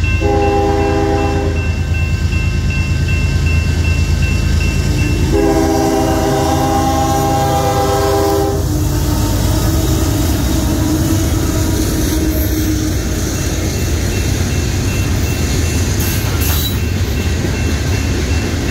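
A Union Pacific diesel locomotive's air horn sounds a short blast, then a longer one about five seconds in, over the train's low rumble. The locomotive then passes, and covered hopper cars roll by with wheel clatter while the crossing's warning bell rings.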